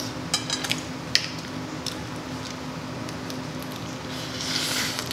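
Eating crab legs at the table: a few sharp clicks of shell or utensils against a plate in the first two seconds, then a short rustling, crackling noise near the end.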